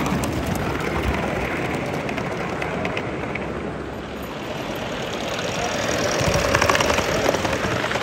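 Gauge 1 model trains running on the layout's metal track: a steady rumble of wheels on rail that swells about five seconds in, with fast clicking as a train passes close.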